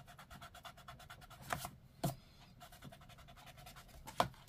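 Small ink eraser rubbed quickly back and forth over cardstock to lift ink smudges, in short spells of fast strokes, with three light knocks along the way.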